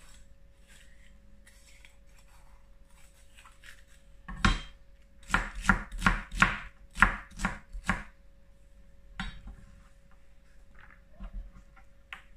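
Kitchen knife chopping red bell pepper on a cutting board: faint cutting sounds at first, then a quick run of about ten sharp chops from about four to eight seconds in, followed by a few lighter knocks.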